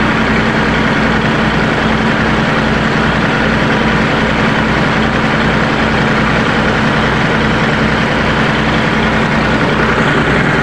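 Tafe 45 DI tractor's three-cylinder diesel engine running steadily with a low pulsing beat, driving the hydraulics that raise the trolley's tipping bed. A steady hum runs over it and fades out near the end.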